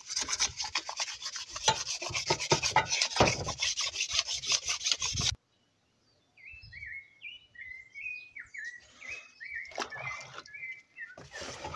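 Sandpaper rubbed in quick back-and-forth strokes on a painted BMX fork during wet sanding, stopping abruptly about five seconds in. After a short pause a bird chirps a series of short falling notes, with some water sloshing near the end.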